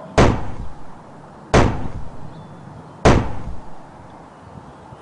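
Three handgun shots, about one and a half seconds apart, each a sharp crack with a short fading tail.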